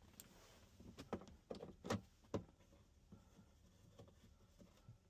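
A few light clicks and knocks from the plastic center console trim being handled, bunched in the first half, the loudest two about two seconds in.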